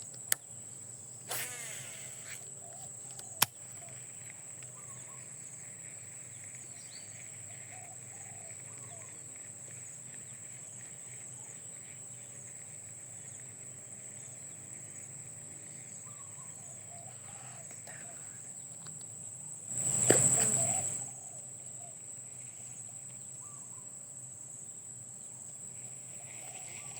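Outdoor insects droning with a steady high-pitched buzz, with faint bird chirps here and there. A few sharp clicks near the start and a louder rush of noise lasting about a second, two-thirds of the way through.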